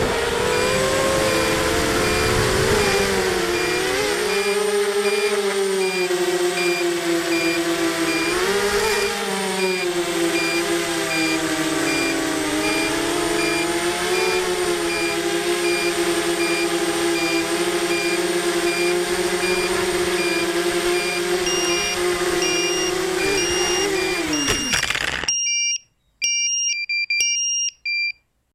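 ZMR 250 racing quadcopter's brushless motors (2300 kV, 5-inch props) whining as heard from the onboard camera, the pitch rising and falling with throttle. About 25 seconds in they cut off abruptly as the quad lands. Short high electronic beeps, faint under the motors, then come through clearly in a quick pattern.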